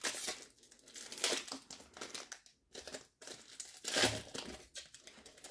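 Wrapper of an NBA Hoops trading card pack crinkling as it is handled and opened by hand, in a run of irregular rustles, the loudest about four seconds in.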